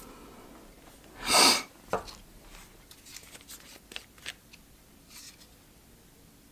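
A short loud rush of noise about a second in, then a sharp click and a series of light clicks and taps from handling small fly-tying tools and a super glue bottle at the vise.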